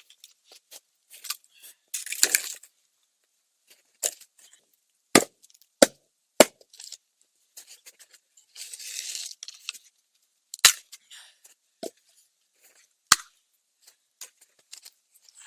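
Firewood being gathered and broken up: several sharp wooden cracks and knocks at uneven intervals, with stretches of rustling between them.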